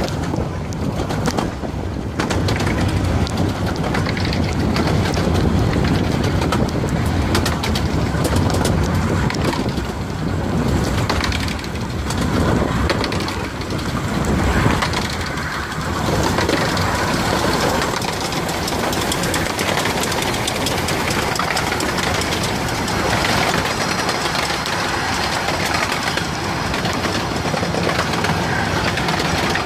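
Steady running noise of a 15-inch-gauge miniature railway train: wheels on the rails and the rush of wind beside the carriage. About halfway through, a steam locomotive passes close by on the adjacent track, with a brief louder moment, and then its coaches rush past.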